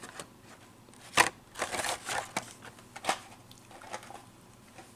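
Carded Hot Wheels die-cast cars being handled, their plastic blister packs and cardboard backs clicking and crinkling. There is a sharp click about a second in, then scattered crackles.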